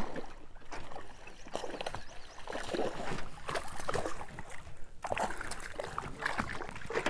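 Hooked bowfin thrashing and splashing at the surface beside a small boat, with irregular knocks and clatter from the rod and boat as the fish is fought in.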